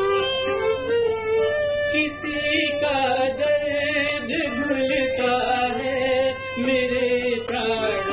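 Song with instrumental backing: held melodic tones for the first couple of seconds, then a singing voice with vibrato comes in over the accompaniment.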